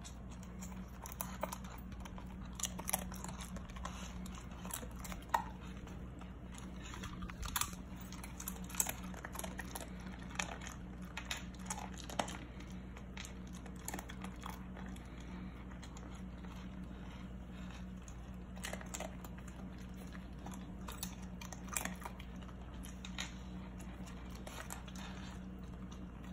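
A husky crunching and chewing tortilla chip pieces, with crisp crunches at irregular intervals over a faint steady low hum.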